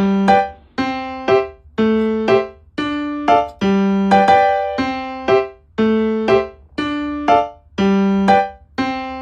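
Background music: a simple piano or electric-piano melody of struck notes that die away, repeating in an even rhythm of about two notes a second.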